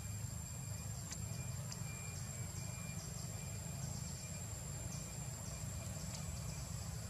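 Insects keep up a steady high-pitched buzz that pulses every half-second or so, over a low, steady rumble.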